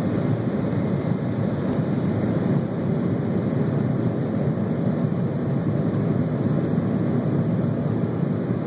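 Cabin noise of a jet airliner on its takeoff roll, engines at takeoff thrust: a loud, steady rushing noise.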